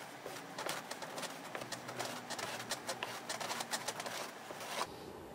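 Wooden strip scraped across the rim of a wooden casting flask, striking off excess moulding sand: a run of gritty scrapes and clicks that cuts off abruptly near the end.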